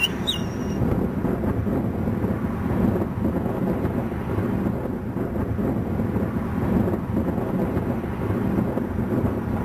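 Wind buffeting the camera microphone: a steady, rumbling low noise that rises and falls without a break.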